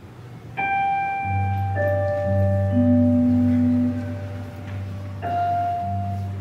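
Live big band music in a slow, quiet passage. Notes start sharply about half a second in, again near two seconds and again near five seconds, and each is left to ring over long held low notes.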